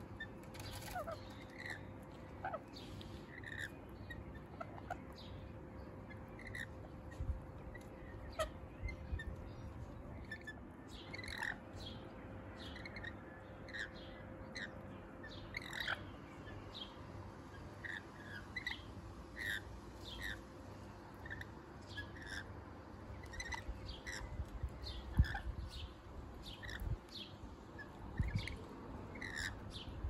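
Rainbow lorikeets calling: short, separate chirps, about one or two a second throughout.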